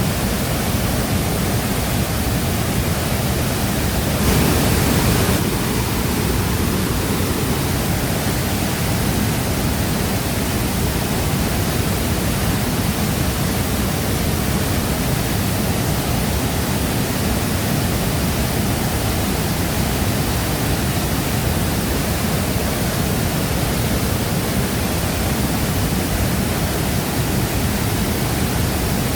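Shifen Waterfall's falling water rushing steadily, with a brief louder surge about four seconds in.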